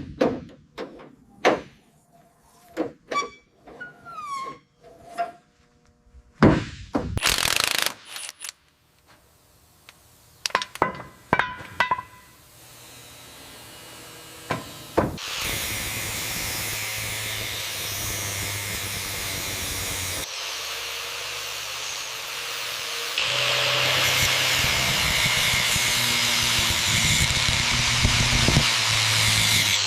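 Workshop tool sounds: a run of separate clinks and knocks, then a short loud burst of noise, then a power tool running steadily, stepping louder about two-thirds of the way through.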